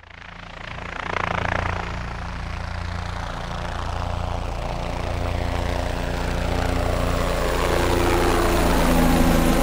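An engine idling steadily, fading in over the first second, with a low pulsing hum.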